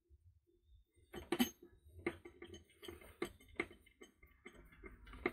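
Irregular small clicks and taps of hard plastic parts being handled and fitted inside the opened chassis of a Husqvarna Automower 450XH's cutting height adjustment assembly, starting about a second in.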